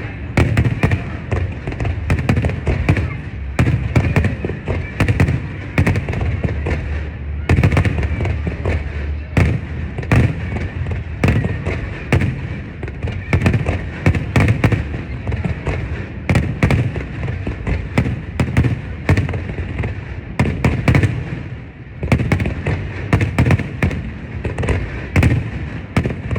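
Fireworks display: a near-continuous barrage of booming shell bursts and crackling, several bangs a second. There is a brief lull a little before the end.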